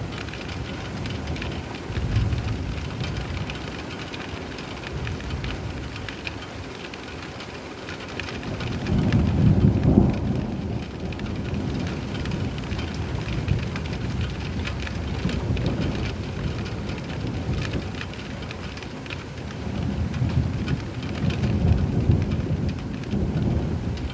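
Steady rain falling, with rolling thunder rumbling in low, drawn-out swells: a brief one about two seconds in, the loudest about ten seconds in, and another near the end.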